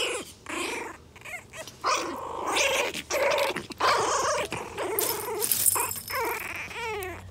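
Chihuahua puppies growling in play as they wrestle, in short, irregular bursts.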